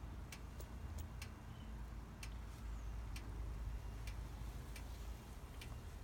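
Sparse, irregular sharp metallic ticks from a switched-off 2015 Yamaha R1's crossplane inline-four engine and exhaust, typical of hot metal contracting as it cools, over a low rumble.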